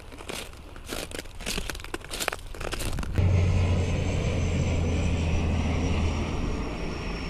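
Irregular crunching and scraping on beach pebbles for about three seconds, then an abrupt switch to the loud, steady engine noise of an airliner flying low overhead, with a deep hum and a thin high whine that sinks slightly in pitch.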